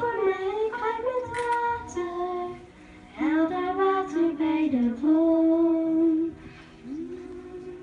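A young girl singing a slow melody solo into a handheld microphone, phrase by phrase with brief pauses to breathe.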